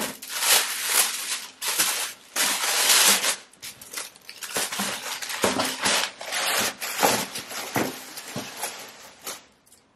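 Tissue paper rustling and crumpling as it is pulled out of a cardboard shoe box, with bursts of loud crinkling in the first three seconds that thin out toward the end.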